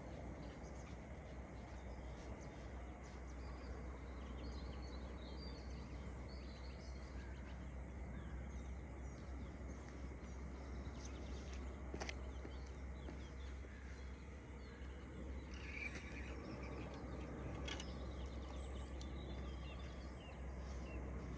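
Outdoor ambience: a steady low rumble and hiss with scattered small bird chirps, and two sharp clicks, about twelve and about eighteen seconds in.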